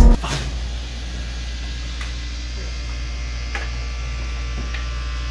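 Music cuts off at the very start, leaving the steady low hum of equipment in a basement mechanical room full of hot-water pipes. A few faint taps sound over the hum.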